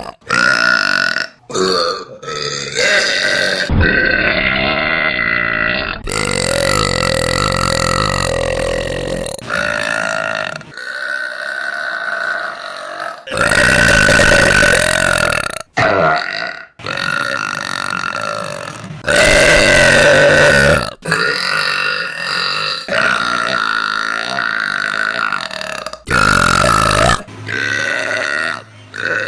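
A woman belching loudly, one long, deep belch after another, each cut off abruptly where the next one begins.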